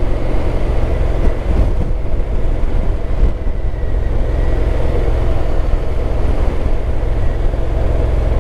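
Honda NC750X motorcycle's parallel-twin engine running steadily at a cruise of about 50 km/h, under a heavy, even rumble of riding noise.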